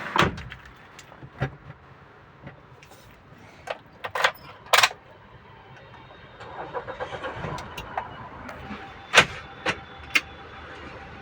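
Clicks and knocks of someone handling a car's controls and fittings, with a run of quick ticks about six seconds in, followed by a faint steady hum.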